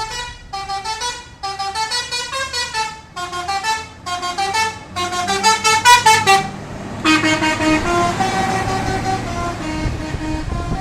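Indonesian bus 'telolet' musical horns sounding bursts of quick stepped notes, several short phrases one after another. From about seven seconds a longer, lower-pitched run of notes follows, over the low rumble of a running bus engine.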